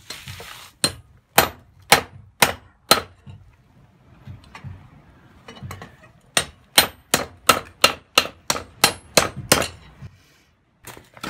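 Hand hammer striking red-hot steel on a small anvil, clanging as the hot taper of a hatchet blank is forged: five blows about half a second apart, a pause of about three seconds, then a faster run of about eleven blows, roughly three a second.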